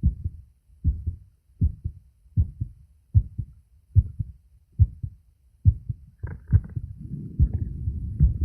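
A man's heartbeat heard through a phone microphone pressed against his chest: evenly spaced lub-dub double thumps, a little over one beat a second. Near the end, scratchy rubbing and then a steady low rumble rise over the beats.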